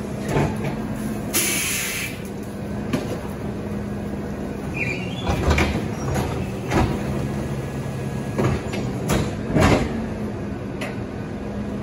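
Rear-loader garbage truck running with a steady low hum while its cart tipper lifts a wheeled trash cart, dumps it into the hopper and lowers it. There is a short hiss about a second and a half in, and a string of sharp knocks and bangs as the plastic cart hits the tipper and hopper.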